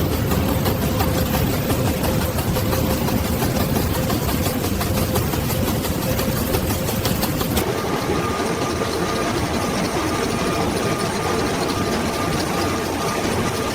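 Steady running of factory machinery, with a fast fine ticking over a low hum. About halfway through the sound changes to a different machine with a steady whine.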